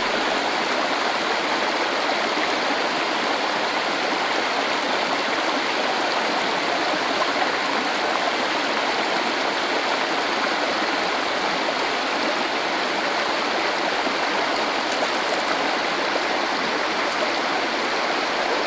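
Steady, even rushing of running water, with no change in level.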